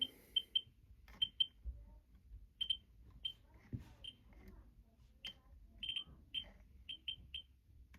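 Ludlum Model 3 survey meter's audio clicker counting from its pancake probe held to a smoke detector's americium-241 source: short, sharp clicks at random intervals, about two a second. The rate is low, a couple of hundred counts a minute at most, because the ion chamber's walls stop most of the alpha particles.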